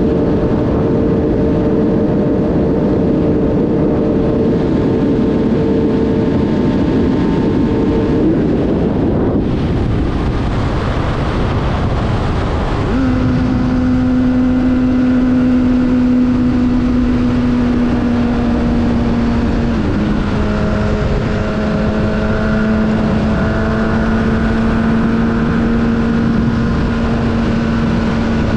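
Honda sportbike engine running steadily at freeway speed under heavy wind rush. The engine note changes about nine seconds in, settles into a steady hum a few seconds later, and steps down slightly around twenty seconds in.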